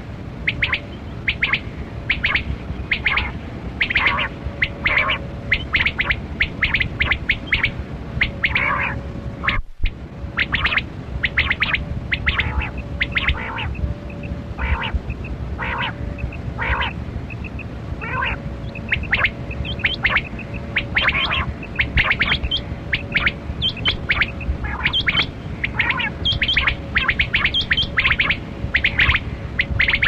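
Rain quail (black-breasted quail) calling: a fast, unbroken run of short, sharp high notes, several a second, cut off for a moment just under ten seconds in. A faint steady hum lies underneath.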